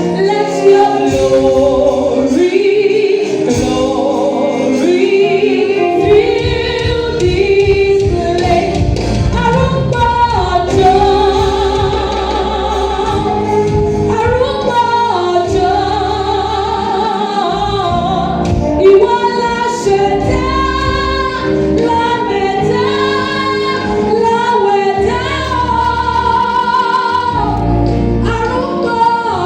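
Gospel music with a choir and female voices singing over a steady bass line.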